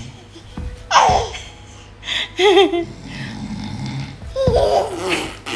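A baby making mock snoring sounds, rough breathy noises in the throat, mixed with short bursts of laughter.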